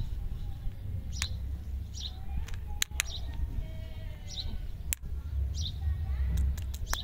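A bird chirping repeatedly, short high chirps about once a second, over a steady low rumble, with several sharp clicks.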